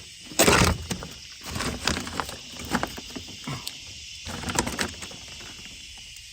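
Stuck-on aluminum tape and old plastic being peeled and torn off a truck's inner door panel: one loud rip about half a second in, then scattered crinkling and crackling as it is pulled away.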